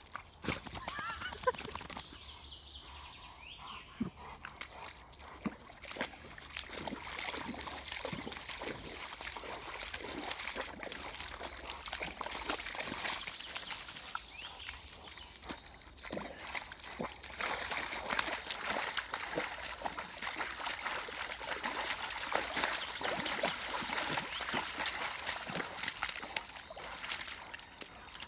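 A Rottweiler pawing and digging in a muddy puddle: irregular splashing, sloshing and wet slaps of water and mud.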